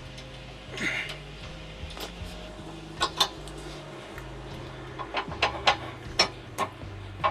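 Metal clinks and knocks of trailer hitch hardware being handled, over a low droning hum.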